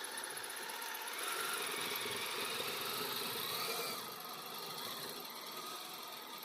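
Kyosho Blizzard RC snowcat driving on metal tracks: a steady electric-motor whine that rises and falls in pitch, with track clatter. It is louder from about a second in until about four seconds in.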